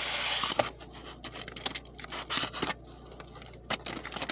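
A door being shut: a steady hiss ends with a sharp latch click about half a second in, followed by scattered light clicks and scrapes from handling.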